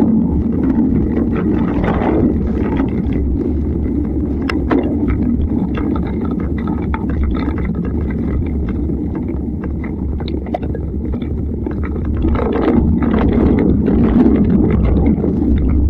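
Mountain bike rolling along a rough dirt track: a steady low rumble of tyres and wind on the microphone, with scattered clicks and rattles from the bike and loose stones.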